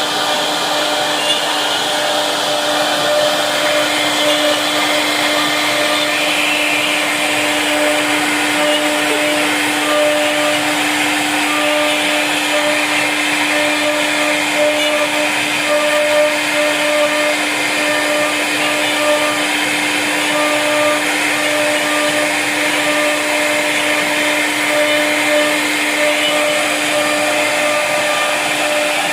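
CNC wood router's spindle running steadily as it carves a design into a wooden board: a constant hiss with an even pitched hum, and a fainter higher tone that comes and goes as the cutting head moves.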